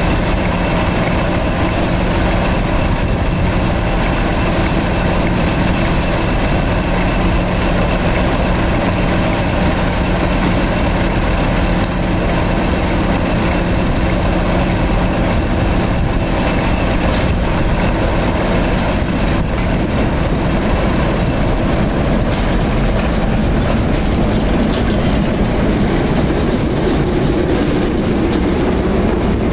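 Diesel locomotives running at low speed: a pair of Class 08 shunters with English Electric six-cylinder engines drawing up and passing close by, beside a standing Class 50. Steady throughout, with the shunters' engine sound building in the last few seconds as they come alongside.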